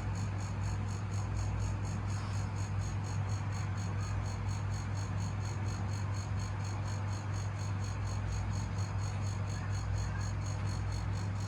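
Air-conditioner compressor running with a strong, steady hum and a fast, even, high-pitched pulsing over it: the loud, bad noise of a compressor with a noise problem.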